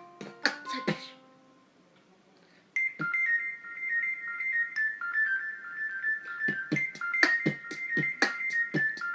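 Redmi phone ringtones with electronic keyboard-like melodies. One tune ends about a second in, then after a short pause a new ringtone starts: a quick, high-pitched repeating melody of short notes, with a beat joining about halfway through.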